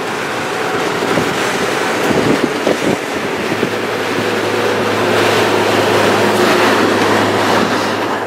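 Wind rushing into a 2018 VW Tiguan's cabin through the open panoramic glass sunroof at highway speed. From a little under four seconds in, a steady low hum joins it as the sunroof slides closed, which fits the sunroof motor.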